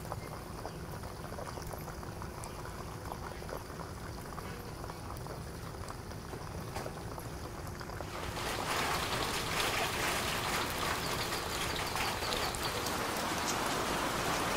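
Chicken wings deep-frying in oil over a low flame: a quiet sizzle with scattered small pops. About eight seconds in, a louder, denser hiss of steady rain takes over.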